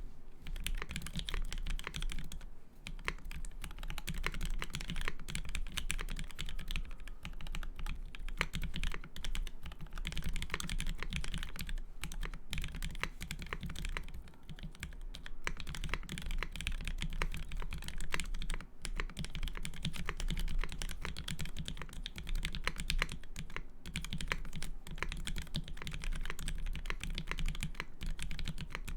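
Steady, fast typing on an HH60 custom mechanical keyboard: Original Aspiration switches lubed with 205g0 and filmed, GMK doubleshot ABS keycaps, lubed stabilisers, and no plate or case foam. The key presses run on continuously, with a few short pauses.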